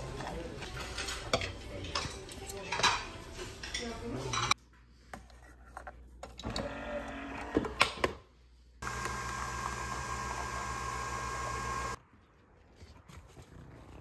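Table clatter of plates and cutlery under background chatter. Then a Nespresso Vertuo capsule coffee machine runs with a steady whirring hum for about three seconds and stops abruptly.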